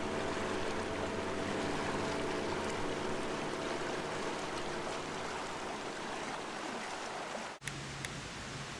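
Steady rushing noise like running water, with faint held tones fading out underneath. It cuts off abruptly near the end, giving way to a quieter hiss with a low hum and a sharp tick.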